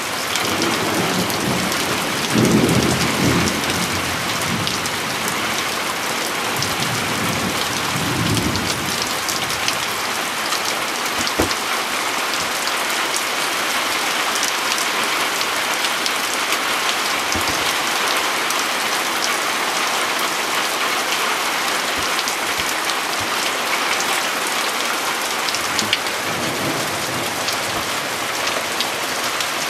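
Heavy thunderstorm rain pouring steadily, with thunder rumbling low a few times, loudest about two to four seconds in and again around eight seconds. A few sharp clicks of drops stand out from the rain.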